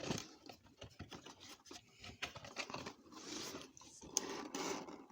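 Cardboard box being opened and its paper and card contents handled: irregular rustling, scraping and light taps, with longer rustles about three and four and a half seconds in.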